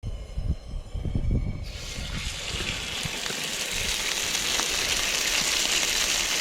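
Low handling bumps, then about a second and a half in rabbit backstraps hit a hot pan and start sizzling, a steady searing hiss that slowly grows louder.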